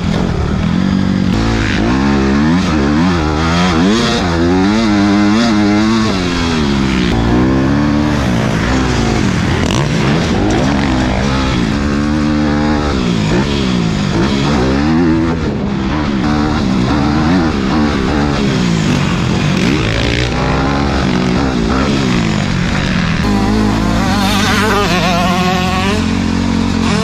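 Motocross bike engine heard from the rider's helmet camera, repeatedly revving up and dropping back as it is ridden around the dirt track, with rushing wind noise.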